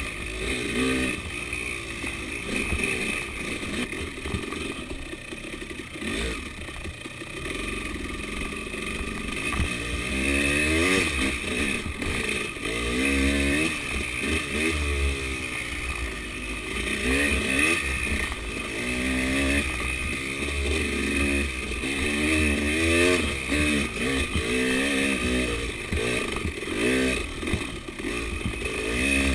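KTM 300 two-stroke enduro dirt bike's engine revving up and down over and over as it is ridden on a trail, pitch sweeping up with each blip of throttle and falling back, recorded on the bike.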